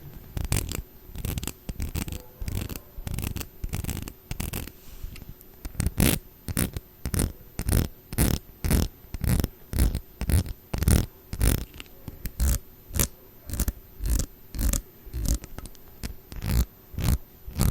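A steady run of close-miked short taps or clicks, about two a second, each with a low thud.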